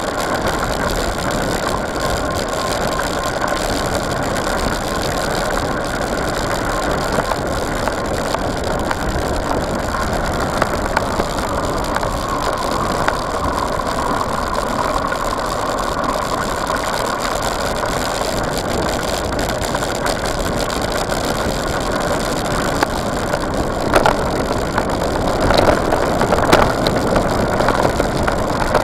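Mountain bike tyres crunching steadily over a gravel fire road, with the bike rattling as it rolls. Near the end a series of sharper knocks and rattles comes in as it runs over rougher ground.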